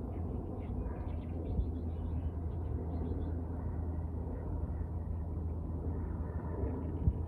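Riverside ambience: a steady low rumble of wind and flowing river water, with faint small bird chirps from about one to three seconds in.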